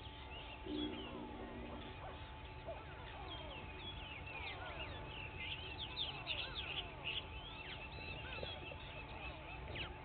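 Chorus of many wild birds singing and calling, with short chirps and whistles overlapping throughout. A single low call lasting about a second stands out near the start.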